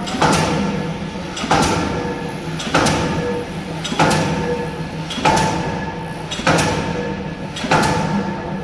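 K25 diesel pile hammer driving a spun concrete pile: heavy blows at a steady pace of about one every second and a quarter, seven in all, over a steady hum.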